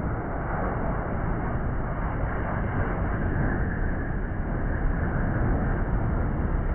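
Jet airliner's engines rumbling steadily as it comes in low to land, with wind buffeting the microphone.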